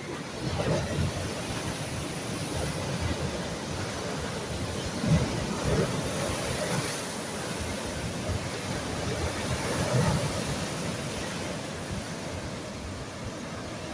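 Sea waves washing onto the shore, a steady rush of surf that swells and eases every few seconds, with wind rumbling on the microphone.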